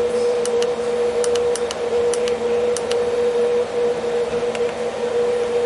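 Buttons on a Huanyang VFD's keypad clicking in quick press-and-release pairs, about five presses in the first three seconds and one more later on. Under them runs a steady hum with a pitched tone.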